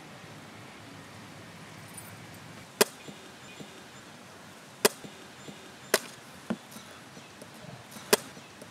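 A large knife chopping into the husk of a hand-held tender coconut: five sharp strokes at uneven intervals, starting about three seconds in, one of them lighter than the rest.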